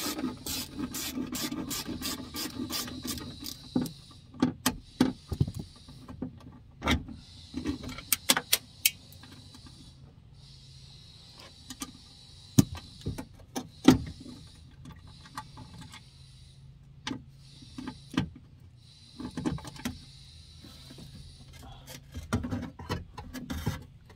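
A ratchet backs out a window regulator motor bolt inside a car door, with rapid clicking for about four seconds. Scattered metallic clicks and knocks follow as the bolt and the motor are handled, two of them sharper about halfway through.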